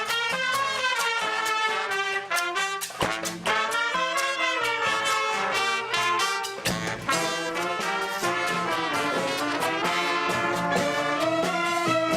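Brass band playing a tune, horns carrying a moving melody, with abrupt breaks about 3 and 7 seconds in.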